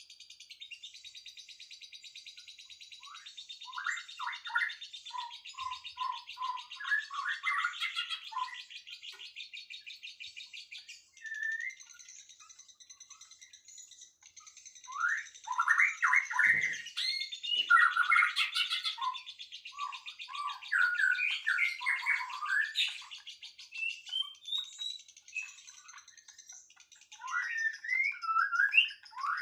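Songbirds singing: bursts of quick chirping song phrases that pause for a few seconds near the middle and then resume, over a steady, high, rapid trill.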